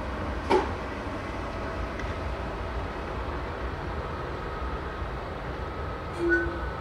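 Steady low rumble of the Tren de la Fresa historic train running, with one sharp clank about half a second in. Near the end the train sounds a short toot on its horn.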